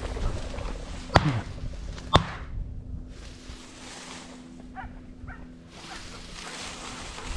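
Two shotgun shots about a second apart, over wind noise on the microphone. A few seconds later a dog gives a couple of faint short barks.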